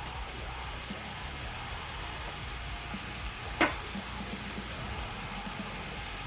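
Seared chuck roast and a garlic clove sizzling steadily in the hot inner pot of an Instant Pot, with one sharp click about three and a half seconds in.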